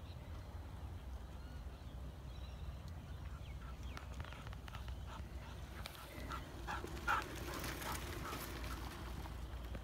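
Low wind rumble on the microphone. From about four seconds in, a Japanese Akita running beside a mountain bike on a dirt trail makes a run of short scratchy bursts and clicks, loudest about seven seconds in.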